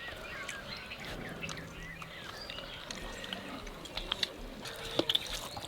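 Birds chirping, mostly in the first two seconds or so, with a few light clicks later on.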